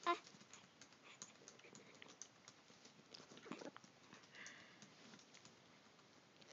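One short, sharp sneeze right at the start. It is followed by faint scattered ticks and a soft breathy huff about four and a half seconds in.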